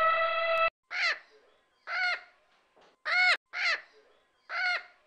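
A bird calling: five short calls, each rising then falling in pitch, spaced roughly a second apart. They are preceded by a steady held tone that cuts off abruptly under a second in.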